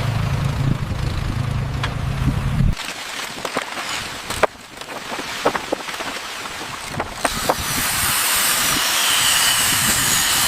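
A low engine hum that cuts off abruptly a few seconds in, then scattered sharp knocks and clicks, and then a loud steady hiss starting about two-thirds of the way through.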